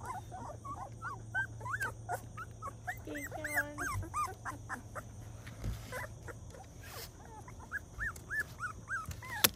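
Young English cream golden retriever puppies whimpering: clusters of short, high, rising-and-falling squeaks, several a second, with a pause around the middle. A sharp click near the end.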